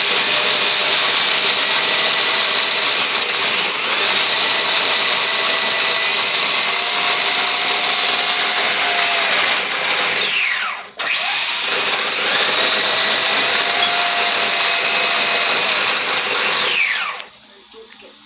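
Arrma Limitless RC car's brushless electric motor whining at high speed over heavy tyre and wind rush. The whine sweeps steeply down in pitch as the car slows, about ten seconds in and again near the end, picking back up in between, and the noise then cuts off abruptly.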